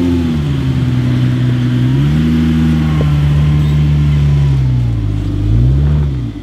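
Jeep Wrangler's engine pulling off-road, its note swelling up and easing back with the throttle in slow waves, then a quick rev and drop near the end.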